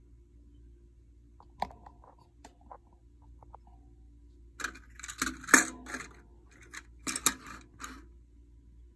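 Handling noises: a few light clicks, then a run of short rustling, rattling bursts in the second half.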